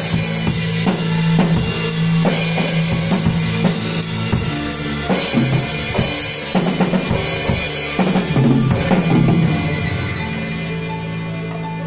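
A child playing an acoustic drum kit, with bass drum, snare and cymbal hits, along with a recorded pop song. The drumming stops about ten seconds in while the song plays on.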